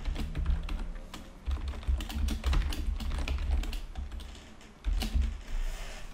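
Typing on a computer keyboard: quick runs of key clicks with dull low thuds under them, a brief pause about four and a half seconds in, then one more burst.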